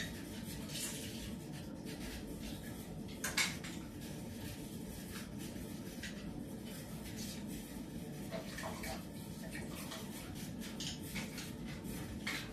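Kitchen utensils and dishes being handled: a few light clicks and knocks, a little over three seconds in, around eight and a half seconds, and again near the end, over a steady low background noise.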